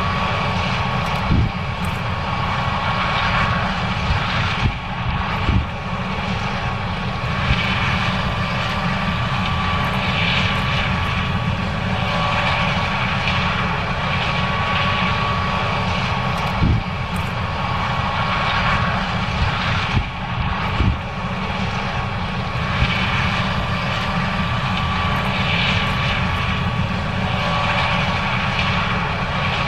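John Deere 9610 combine running steadily while harvesting corn: a constant low drone with a steady high whine over it, and a few short knocks along the way.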